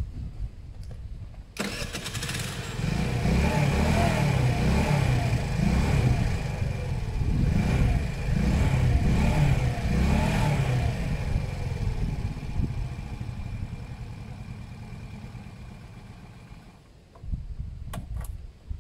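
Small 50cc GY6-type four-stroke scooter engine catching about a second and a half in, then revved up and down several times. It fades off and stops near the end, a cold engine that the owner says just needs warming. It is running with the CDI restriction wire cut.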